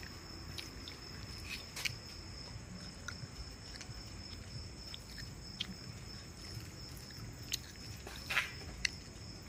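Low, steady rumble of a two-wheeler riding slowly through a lane, with a thin steady high-pitched tone over it and a few faint clicks.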